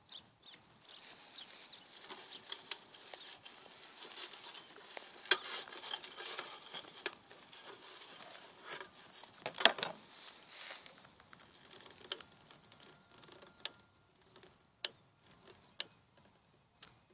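Rustling and crinkling of dry fuel being handled and packed into a beekeeper's metal smoker, loudest in the first half, then a series of single sharp clicks about a second apart near the end.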